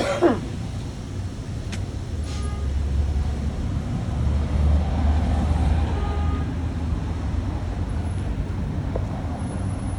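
Low, steady engine rumble of a heavy road vehicle, swelling louder in the middle and easing off again, with a sharp click about two seconds in.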